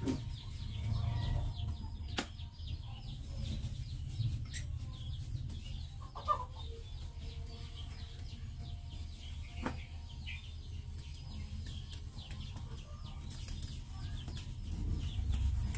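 Cloth rag rubbing and flapping as a freshly washed acrylic plate is wiped dry by hand, with a few light clicks and a brief squeak about six seconds in, over a steady low rumble.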